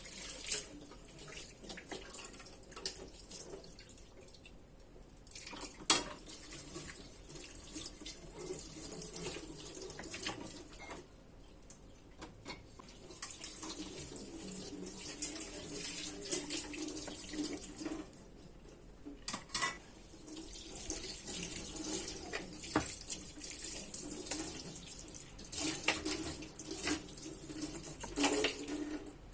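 Kitchen tap running into a sink while dishes are washed by hand, the water stopping and starting several times, with a few sharp clinks of dishes.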